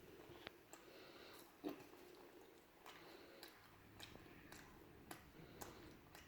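Faint chewing of deep-fried food close to the microphone: soft, scattered mouth clicks and small crunches at irregular intervals.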